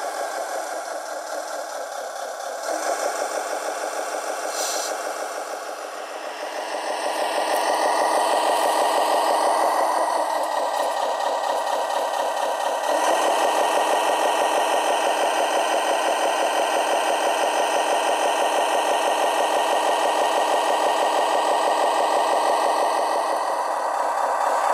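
Engine running sound from a radio-controlled model fire truck: a steady, evenly pulsing diesel-like note, thin and without deep rumble, getting louder about seven seconds in and again a little later.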